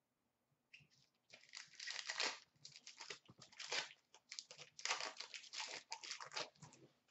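Wrapper of a hockey trading-card pack being torn open and crinkled by hand, in a run of short crackly bursts starting about a second in.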